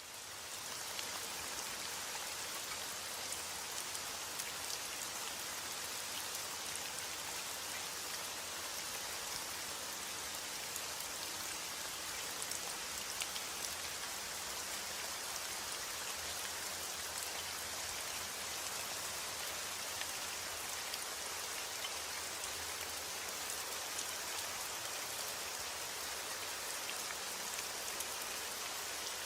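Steady rain, an even hiss dotted with many small drop ticks, fading in over the first second and then holding level.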